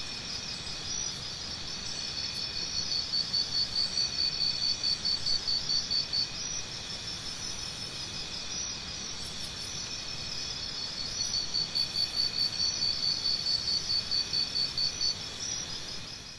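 Insects chirping in a steady high-pitched trill, with two louder stretches of quick pulses, about three a second; it fades away near the end.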